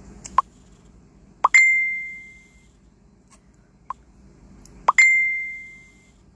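Cartoon sound effects: four quick plop-like pops, the second and fourth each followed at once by a bell-like ding that rings out for about a second.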